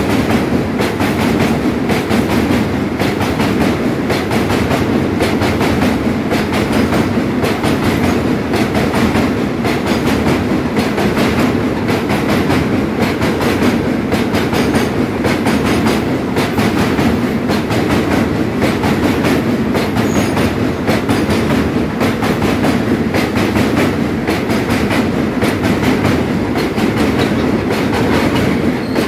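Steel wheels of Indian Railways freight wagons rolling past close by on the rails: a steady loud rumble with rapid clacks of the wheels over the rail.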